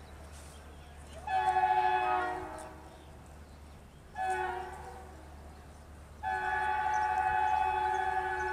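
BNSF 2313's locomotive air horn sounding three blasts: a long one, a shorter one, then a long held blast running on. The chord is a horn the railfan calls 'the most broken horn ever'.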